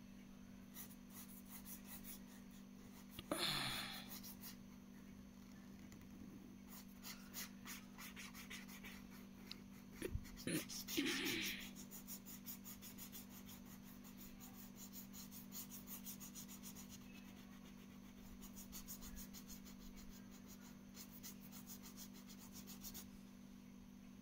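Red felt-tip pen scratching back and forth on paper in quick strokes, in several runs, as it colours in a drawing. Two louder, brief rustling noises come about three seconds in and again about ten seconds in, over a steady low hum.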